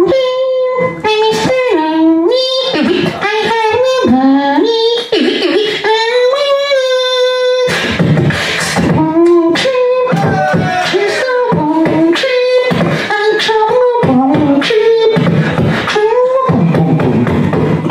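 Solo human beatboxing into a handheld microphone: a sung, gliding melody line over percussive mouth sounds. A long held note comes about six seconds in, and from about eight seconds in deep bass and sharper drum hits fill in under the melody.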